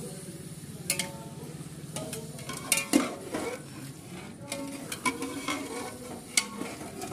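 A metal spoon stirring and scraping chunks of cooked meat in a large metal cooking pot, with scattered clinks of metal on metal, as the meat is fried in its spice masala.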